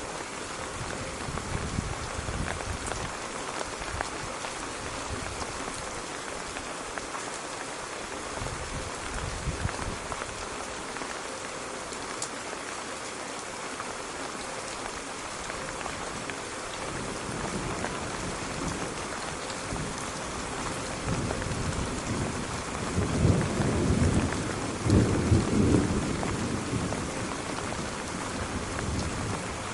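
Steady heavy rain with a low rumble of thunder that builds about halfway through, is loudest a little past two thirds of the way in, then fades.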